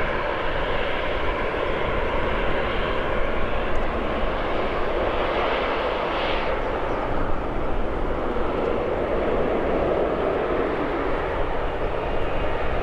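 Airliner engine noise, a steady rushing sound from a plane near the runway, with a faint whine that fades over the first few seconds.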